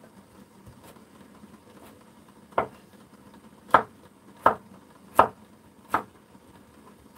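Kitchen knife chopping a carrot on a wooden cutting board: a couple of faint taps, then about six sharp chops, roughly one a second, starting a few seconds in.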